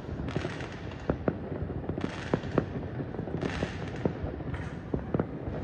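Distant fireworks going off over the city: an irregular, continuous run of sharp pops and bangs.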